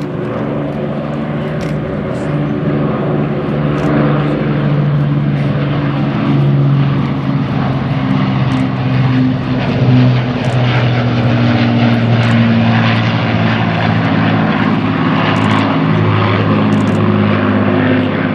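The four radial piston engines of the Boeing B-17 Flying Fortress 'Sally B' drone loudly in flight. The stacked engine-and-propeller hum shifts slightly lower in pitch a few times as the bomber passes.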